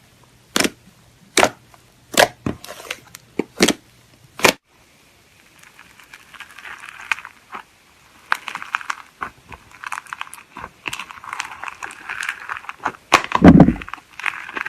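Slime being played with: a run of about seven sharp pops, like air pockets bursting, then a steady crinkly crackling as crunchy slime is squeezed and worked, with one loud deep squelch near the end.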